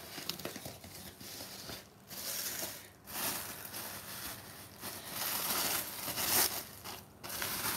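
Thin white packing wrap inside a cardboard box being pulled back by hand, crinkling and rustling in repeated bursts that grow louder about halfway through.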